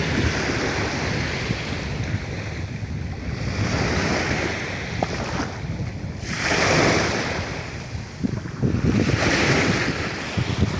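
Sea waves washing in, about four swells rising and falling, the loudest about two-thirds of the way through, with wind rumbling on the microphone.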